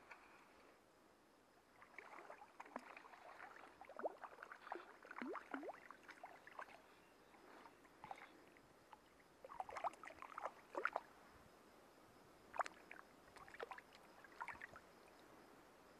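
Water splashing in irregular spells as a hooked fish, likely a trout, thrashes at the surface on a fly line. There are three flurries of splashes, around two to seven seconds in, around ten seconds, and between about twelve and fifteen seconds.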